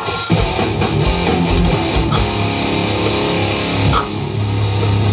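Loud, distorted hardcore music with electric guitar and bass guitar, kicking in suddenly just after the start; a low bass note is held from about four seconds in.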